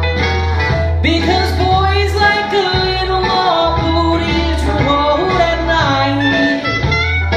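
A man singing in a crooner style over a retro jazz backing, with sustained low bass notes underneath.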